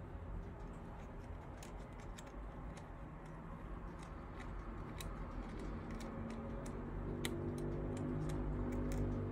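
Scattered clicks of mechanical keyboard keys being pressed one at a time, unevenly spaced, a few a second. Soft background music comes in about halfway through.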